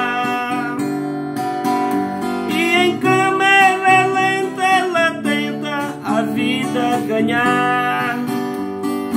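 Acoustic guitar strummed in steady chords, with a man's voice holding long, wavering sung notes over it twice.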